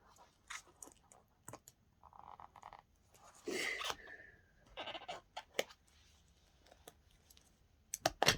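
Small clicks and crinkles of a plastic slime container and its packaging being handled and worked open, with a short bleat-like cry about three and a half seconds in.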